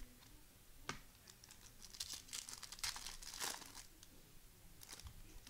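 Foil trading-card pack wrapper being torn open and crinkled, in a burst of crackly rustling through the middle, with a single sharp tap about a second in and a brief rustle near the end.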